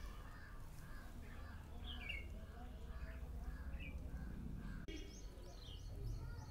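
Birds chirping in the background, a few short high chirps scattered over a low steady hum, with a brief dropout about five seconds in.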